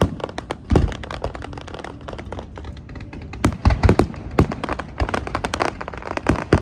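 Fireworks display going off: a rapid run of bangs and crackles, with heavier booms about a second in and again around three to four seconds in.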